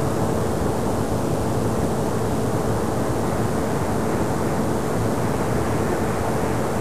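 Steady loud hiss and rumble of an amplified EVP audio recording's background noise, with a faint steady hum underneath.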